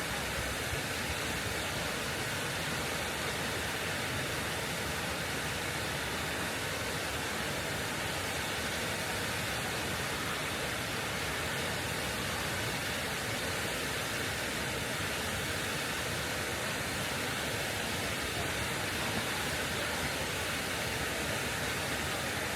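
Steady rushing water, an even, unbroken hiss with no breaks or separate sounds.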